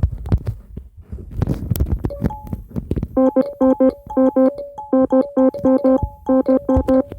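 Electronic piano-like tones: a single low note struck over and over in quick pairs, about four a second, starting about three seconds in, with a few brief higher tones between. Dull thumps and taps run underneath.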